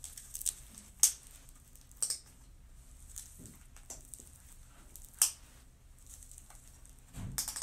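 Strap buckles on a Corflex Contender post-op knee brace snapping shut as each strap is pulled around the leg and its gray piece clipped in: three sharp clicks, about one, two and five seconds in, with soft rustling of the straps between.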